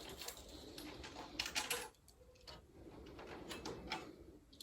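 Faint clicks and light metal scraping from a Phillips screwdriver working the screw of the PlayStation 5's M.2 SSD expansion-slot cover, coming in small clusters.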